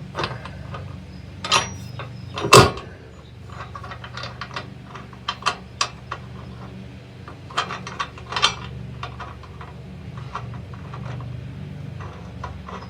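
Metal clinks and knocks of hand tools, nuts and bolts as a hitch mount is bolted to an RV frame, with the loudest knock about two and a half seconds in and clusters of lighter clicks later on, over a steady low hum.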